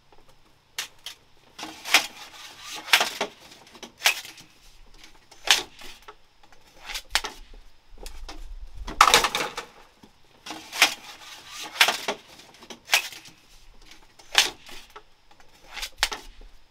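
A jungle knife chopping wood: sharp knocking strikes at an irregular pace, roughly one a second.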